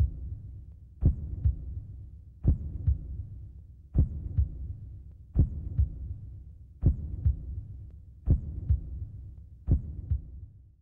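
Slow heartbeat sound effect in the soundtrack: a low double thump, a strong beat with a softer one just after, repeating about every second and a half over a low steady hum.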